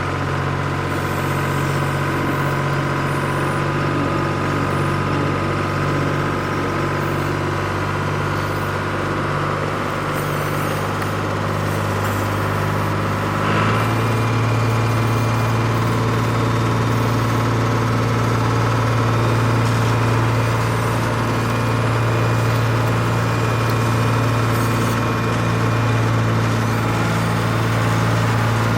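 Steady engine-like drone from an RC model machine. About halfway through it steps to a deeper, slightly louder note.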